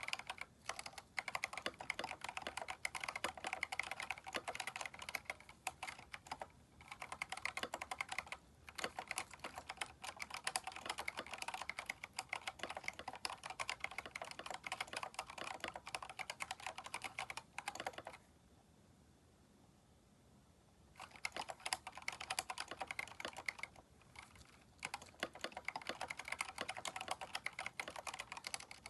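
Steady typing on a Keychron K4 mechanical keyboard fitted with aftermarket keycaps, a dense run of key clacks. There are brief pauses, and a longer stop of about three seconds roughly two thirds of the way through.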